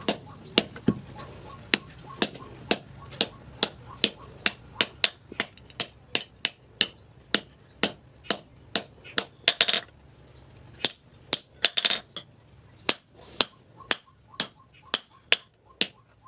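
Hammer blows on red-hot steel resting on an anvil during forging, a steady run of sharp strikes about two a second, sometimes quicker. Two strikes about halfway through are longer and rattlier.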